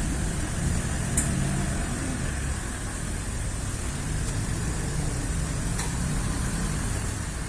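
A steady low mechanical hum, like a running engine, with two short sharp clicks, one about a second in and one near the end.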